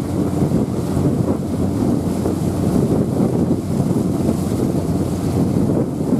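Passenger ferry underway, a steady low rumble of its engines under wind buffeting the microphone on the open deck.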